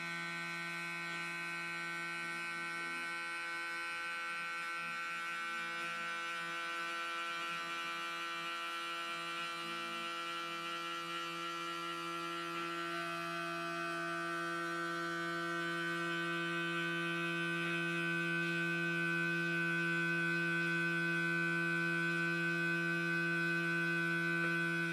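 Small eccentric-weight vibration motor from a cheap electric toothbrush buzzing at a steady speed on a foam boat hull, one even hum that grows a little louder in the second half. It is overdriven from a fully charged 1S LiPo at up to 4.2 volts, though it is built for 1.5 volts.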